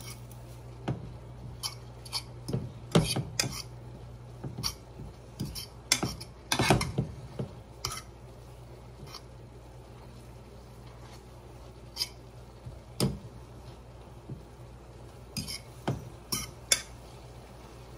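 Cooking utensils knocking and scraping against a frying pan as spinach is stirred and worked down while it sautés, in irregular clusters of clinks, busiest in the first few seconds and again near the end. A steady low hum runs underneath.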